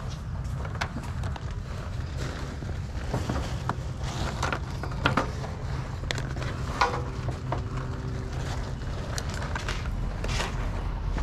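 Scattered light clicks and knocks of plastic items being picked up, turned over and set down on a table, over a steady low rumble.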